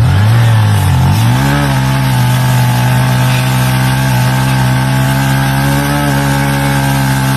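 An engine running loudly: its pitch dips, then climbs to a higher speed about a second in, and after that it runs steady.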